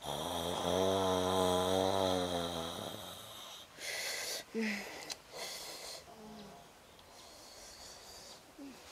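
A man snoring in his sleep: one long wavering snore lasting about three seconds, then quieter breathing with a couple of brief murmurs.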